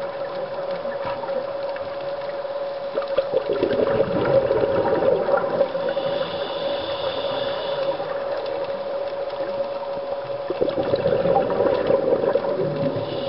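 Scuba divers' exhaled bubbles gurgling from a regulator underwater in two spells, about three seconds in and again about ten seconds in, over a steady hum.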